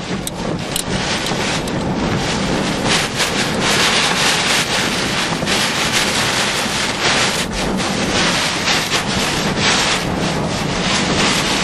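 Hurricane wind blowing hard across the microphone: a loud, steady rush that swells and dips in gusts.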